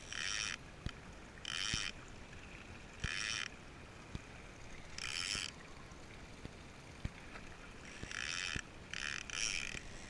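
Small waves slapping and splashing against a small boat's hull: about seven short splashes at irregular intervals of one to three seconds, with faint knocks in between.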